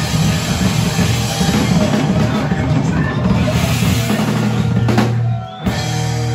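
Live rock band playing loud, the drum kit to the fore with electric guitar and bass. About five and a half seconds in the band stops abruptly for a moment, then a held low note rings on.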